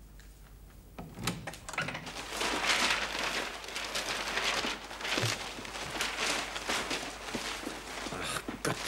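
Sheets of paper rustling and crumpling in quick, irregular bursts as they are handled and tossed about, starting about a second in.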